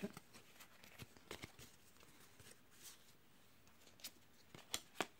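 Faint, scattered flicks and clicks of Yu-Gi-Oh! trading cards being flipped through by hand, a couple of sharper ones near the end.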